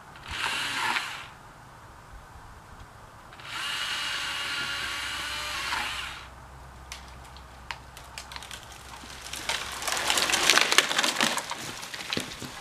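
Husqvarna 120i battery chainsaw cutting in two short runs, the second about two and a half seconds long. A few seconds later comes a rising run of wood cracking and splintering as the cut tree breaks loose and falls, loudest about ten seconds in.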